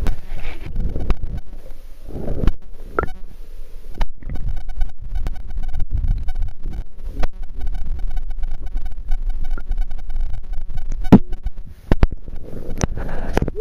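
Background music with a steady, repeating beat over a low rumble.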